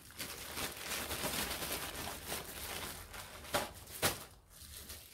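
Plastic mailer bag and plastic wrapping rustling and crinkling as a hand rummages inside and pulls out wrapped silicone molds, with two short sharp taps about three and a half and four seconds in.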